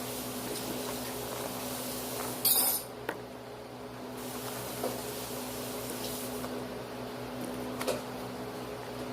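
Handling noises: one short, loud scraping clatter about two and a half seconds in, then a few light clicks and knocks, over a steady low hum.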